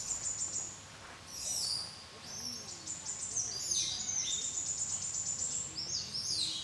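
High-pitched animal calls: shrill chirping trills and squeaks that slide downward, coming in several runs with short lulls between them.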